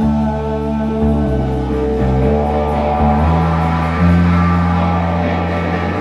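Rock band playing live: electric guitar and bass guitar hold long, low notes that shift to a new pitch every second or so.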